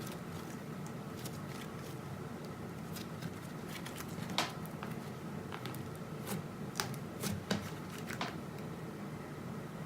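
Slime being squished and stretched by hand, giving scattered sharp clicks and pops, the loudest about halfway through and a quick cluster near the end, over a steady low hum.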